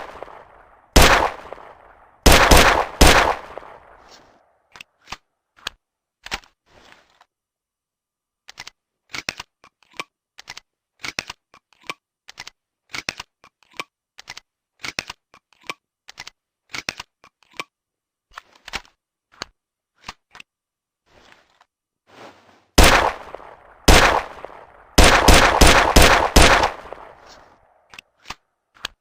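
Nagant M1895 revolver (7.62×38mmR) firing: several sharp shots with echoing tails in the first few seconds, then a long run of quiet metallic clicks and clacks from handling the revolver, then a fast string of about six shots near the end.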